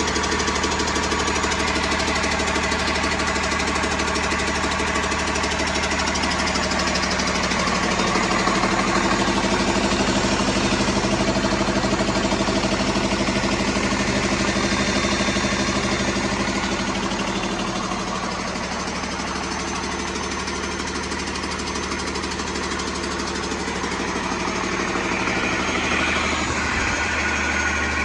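Hino J08E-VC 7.7-litre turbo diesel engine idling steadily on a test stand.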